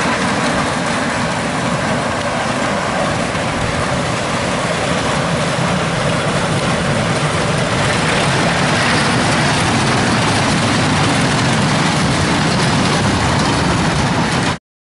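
Small caterpillar-style kiddie train running along its narrow rails: a steady rumble and rattle of motor and wheels that cuts off suddenly near the end.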